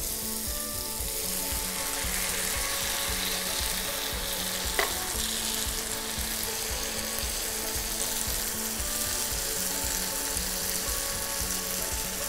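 Diced onion and carrot sizzling in olive oil in a frying pan as whole canned tomatoes are tipped in, a steady hiss. One short knock about five seconds in.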